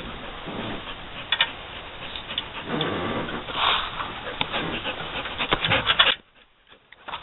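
Clicks and rubbing of metal parts being handled and fitted on a mud-motor shaft mount, with a quick run of clicks near the end before the sound cuts off suddenly.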